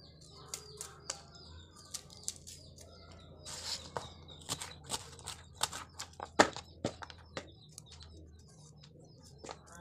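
Knife cutting fresh green beans and cabbage by hand, in irregular crisp clicks and snaps, a few a second. The loudest snap comes about six and a half seconds in.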